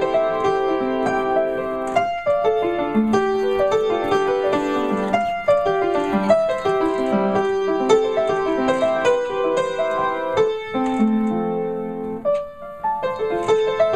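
Solo piano played with both hands: a melody over held, overlapping notes, easing off briefly near the end before carrying on.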